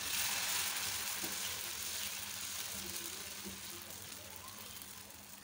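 Millet (kambu) dosa batter sizzling as it is poured onto a hot, oiled dosa griddle and spread in circles with a ladle. The hiss fades gradually.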